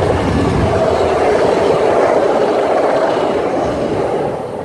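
A VIA Rail GE P42DC diesel locomotive and its passenger cars rushing past at speed, a loud rush of engine and wheels on rail that fades near the end as the train moves away.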